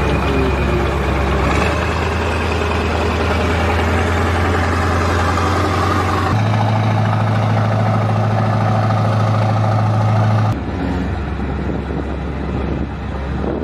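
K-9 Vajra self-propelled howitzer's diesel engine running as the tracked vehicle drives, a deep steady drone. Its note changes suddenly about six seconds in, and the sound drops in level about ten and a half seconds in.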